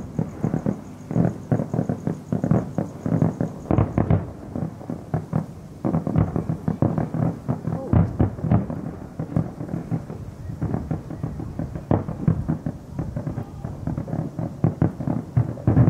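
Aerial fireworks display going off: a rapid, irregular string of booms and crackles, with brief lulls about four and ten seconds in.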